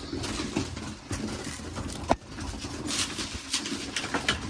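Young racing pigeons feeding on grain: a busy patter of beaks tapping and picking at the feed, under low pigeon cooing, with one sharp click about two seconds in.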